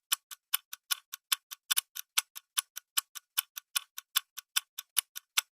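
Clock-ticking sound effect of a quiz countdown timer: sharp, evenly spaced ticks, about five a second, alternating louder and softer.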